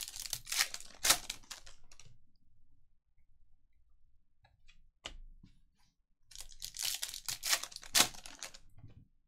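Foil trading-card packs being torn open and crinkled by hand, in two bouts: one at the start and another about six seconds in. A single sharp click comes about five seconds in.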